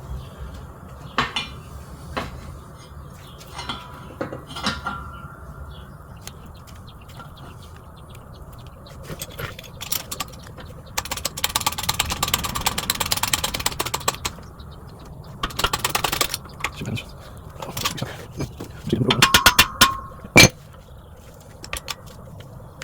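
A polyurethane bushing being worked into a Lexus ES330 lower control arm with a vise: metal tool clicks and clanks, with three quick runs of rapid clicking and one sharp clank near the end.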